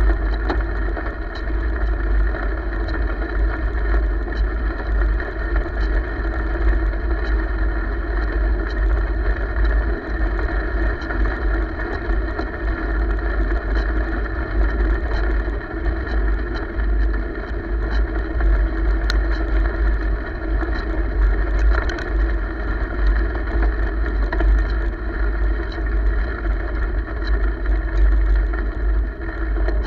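Wind buffeting the microphone of a camera riding along on a bicycle, a steady low rumble mixed with the hiss of tyres rolling on pavement. Small clicks and rattles come through now and then.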